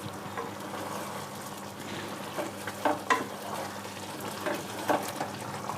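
Toor dal fry sizzling in an open pan while a spoon stirs it, with several short scrapes and clinks against the pan around the middle and near the end.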